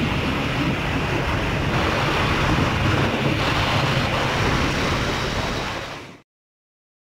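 Wind rushing over the microphone of a moving motorcycle, with the engine humming steadily underneath. It cuts off suddenly about six seconds in.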